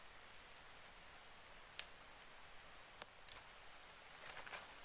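A handful of short, sharp clicks and snaps of sticks being handled and worked by hand, spaced out and coming closer together near the end, over a faint steady hiss.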